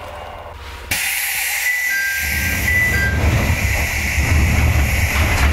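Chichibu Railway electric train at the platform: a sudden loud hiss of air about a second in, then two short high tones. From about two seconds in a low rumble builds as the train moves.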